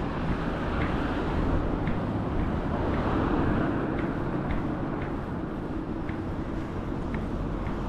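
Street traffic: cars driving past on a town road, a steady rumble of engines and tyres that swells a little midway, with faint light ticks about once a second.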